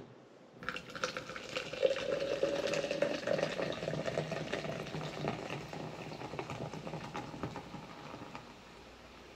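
Zero Sugar Fresca, a carbonated soda, being poured out and fizzing, with fine crackling throughout. The pour starts about half a second in, and the fizz dies away about a second before the end.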